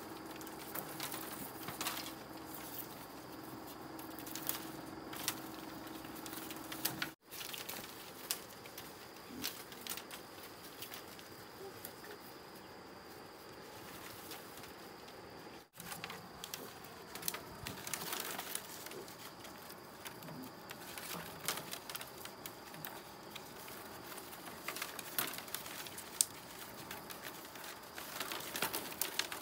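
Long split-bamboo strips rattling, clacking and tapping against each other as they are handled and woven into a lattice pig cage: an irregular scatter of sharp clicks and light knocks.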